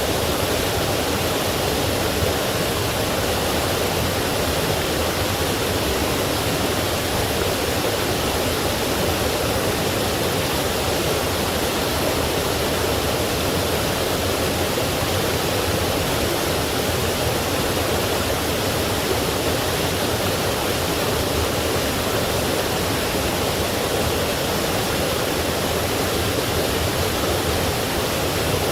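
Forest stream and small waterfall: a steady, unbroken rush of running water.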